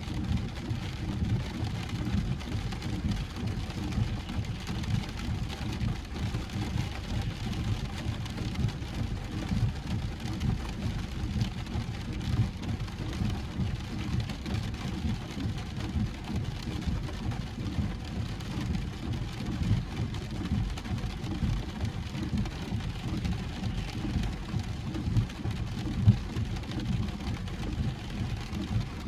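Steady road rumble and hiss of a car driving, heard from inside the cabin.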